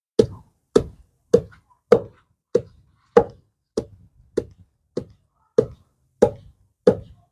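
Pestle pounding pumpkin leaves in a mortar: a steady rhythm of dull knocks, about twelve strokes, a little under two a second.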